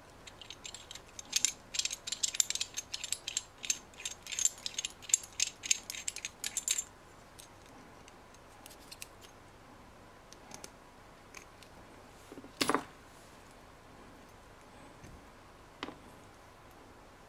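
Metal 20A outlet socket fitting (threaded body and hex lock nut) handled and taken apart by hand: rapid metallic clicking and clinking for about six seconds, then one louder knock about twelve seconds in and a faint click near the end.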